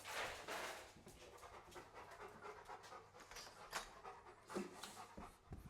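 A dog panting, a steady run of quick, fairly faint breaths.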